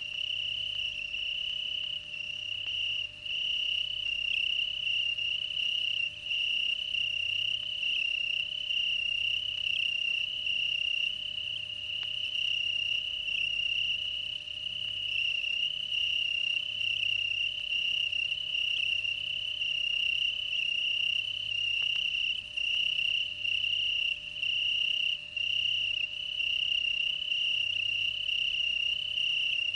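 Cricket trilling, one continuous high trill with no break, over a faint low hum.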